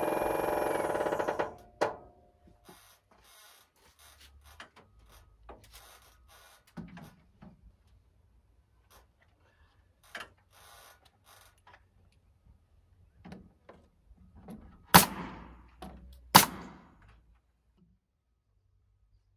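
Construction work putting up lap siding: scattered faint knocks and clicks, then two loud sharp bangs about a second and a half apart, about three-quarters of the way through.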